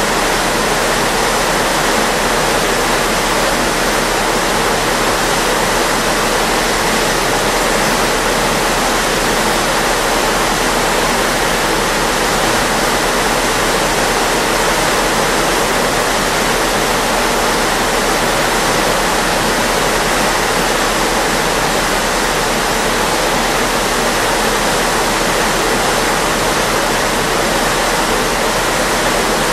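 Steady rushing of churning water, the wake foaming behind a moving ship's stern.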